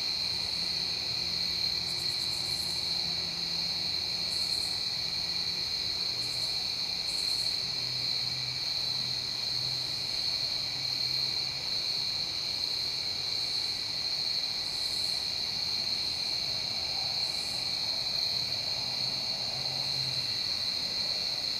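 Night insect chorus: crickets trilling steadily at one high pitch, with short higher-pitched insect calls coming every few seconds. A faint low hum runs underneath.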